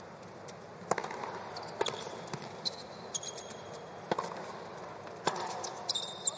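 Tennis rally on a hard court: a serve about a second in, then racket strikes on the ball roughly every second or so, with ball bounces and brief high squeaks of shoes on the court over steady crowd noise.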